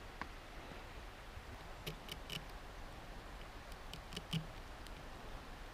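A few faint light clicks and taps from a dish of cooked trout and eating utensils being handled, in small clusters about two seconds and about four seconds in, over a faint steady background.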